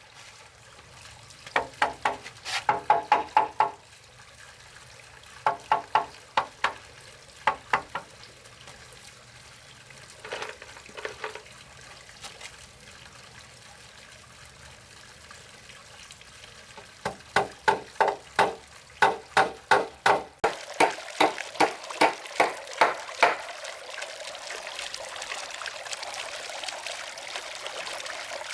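Repeated sharp strikes in bursts of several blows, like hand tools striking wood during building work. From about two-thirds of the way in, a steady rushing hiss like running water joins the strikes and continues on its own afterwards.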